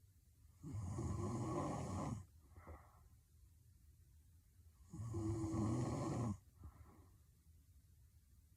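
A woman snoring heavily in her sleep: two snores about four seconds apart, each lasting about a second and a half, each followed by a short, quieter breath.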